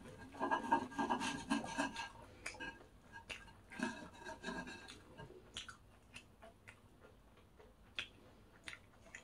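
Crisp rasping and crackling of a breaded, deep-fried pork cutlet being worked at close range, in two spells of rubbing in the first half, then a few scattered small clicks.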